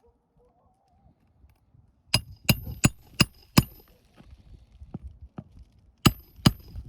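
Hammer driving roofing nails into an asphalt shingle: five quick ringing strikes about two seconds in, two lighter taps, then two more ringing strikes near the end.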